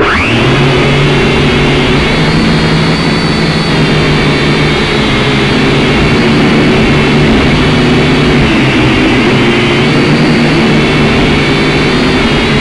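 Small drone's motors and propellers spinning up abruptly with a quick rising whine as it lifts off, then a steady buzzing whine while it flies, heard up close through the drone's own onboard microphone.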